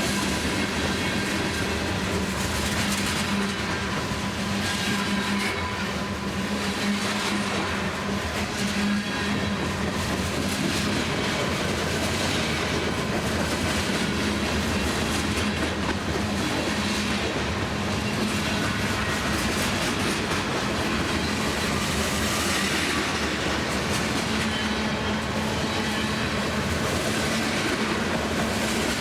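CSX freight train's cars rolling past at steady speed, wheels clicking over the rail joints with a continuous rumble.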